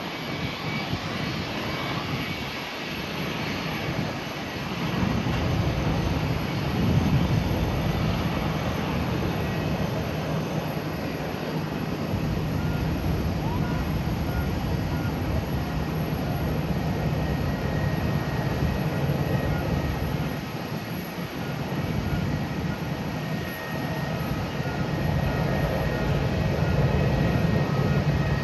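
Airbus A350-900 airliner's Rolls-Royce Trent XWB turbofan engines running at taxi power: a steady jet rumble with faint high whining tones, swelling slightly a couple of times.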